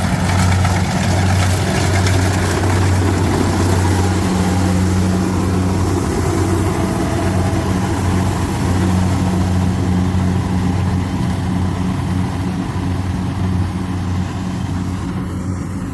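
Kubota rice combine harvester's diesel engine running steadily, a loud low hum over the clatter of the machine, easing off a little near the end.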